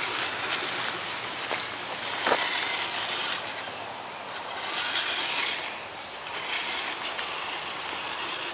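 Tamiya Tundra RC truck driving down a loose dirt and gravel trail: its tyres crunching and its drivetrain running, with a sharp click about three and a half seconds in.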